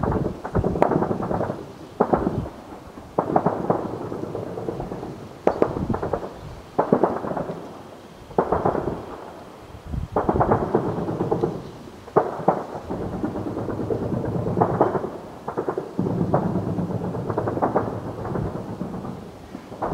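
Heavy shelling: a sharp blast every one to two seconds, each trailing off into a long rolling rumble that runs into the next.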